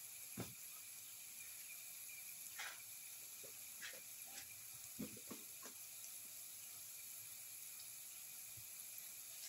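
Faint sizzling of chili powder frying in hot oil with onions, garlic and tomato, with a few small scattered pops and crackles.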